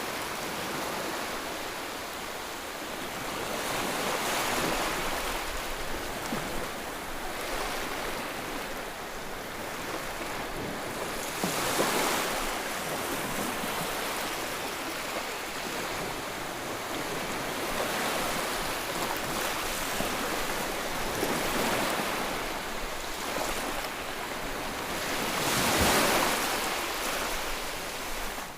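White-noise track for soothing a colicky baby: a steady rushing noise like ocean surf, swelling and easing every few seconds, with louder swells about twelve seconds in and near the end.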